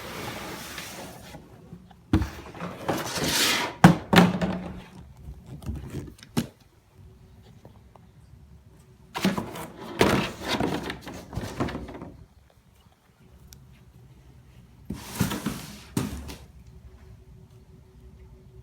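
Shipping box and packing material rustling and scraping as a guitar case is handled and pulled out, in several stretches. There are a few knocks and thuds, the sharpest about four seconds in.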